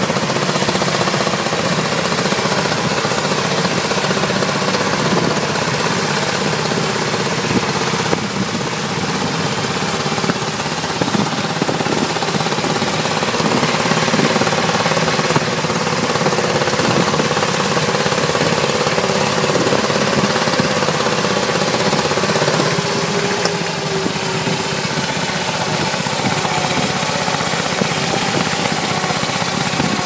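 Tractor engine running steadily and loudly close by, with a fast, even pulsing beat that does not let up.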